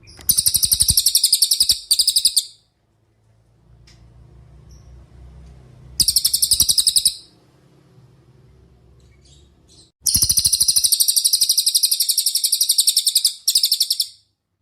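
Cililin songbird singing in three rapid, high-pitched trills of quickly repeated notes. The longest trill, about four seconds, comes near the end.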